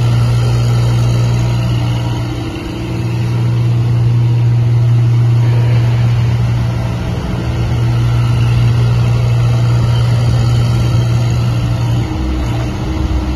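Engine of a 1-ton tracked mini excavator running steadily, with brief dips in level about two and a half seconds in and again around seven seconds, and a change in the engine note near the end.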